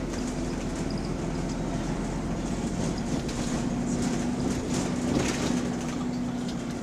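Bus engine running steadily with a hum and loose rattling, on a bus with a large exhaust leak.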